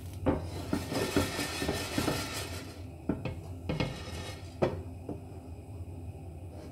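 A lidded metal frying pan being shaken on a gas hob. For the first few seconds the unpopped popcorn kernels rattle and slide across the pan's base, and then the pan and its glass lid knock a few separate times. The kernels have not yet started to pop.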